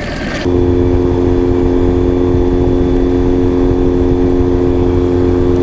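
Outboard motor on a small inflatable boat running at a steady, constant speed: an even drone with a low rumble, cutting in suddenly about half a second in.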